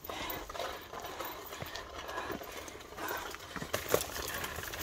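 Footsteps of a hiker walking on a dirt trail, uneven scuffs and crunches, with a few sharper steps near the end.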